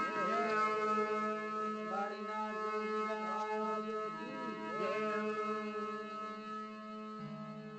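Marwari bhajan music: a steady held drone with a sliding, wavering melodic line over it, fading a little near the end.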